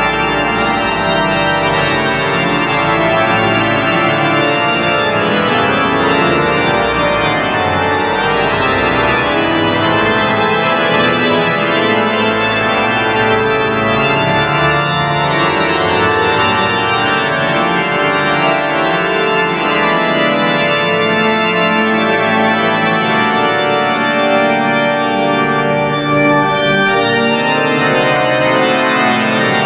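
Church organ playing, many sustained notes sounding together over a steady bass, loud and unbroken.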